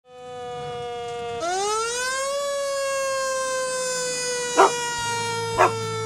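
Fire engine siren wailing: a steady tone that drops, winds up in pitch over about a second, then slowly falls. A dog barks twice near the end, about a second apart.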